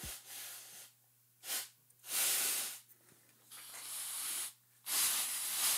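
Can of compressed gas duster held upside down, spraying in about five hissing bursts, short at first and about a second long later on. Upside down, the can sprays its liquid propellant as a freezing-cold jet rather than plain air.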